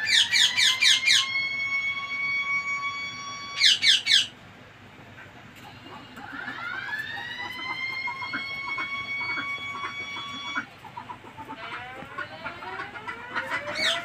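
Indian ringneck parakeets calling: a fast string of shrill screeches at the start and again about four seconds in, with long, steady, whistle-like tones held for several seconds in between and again later.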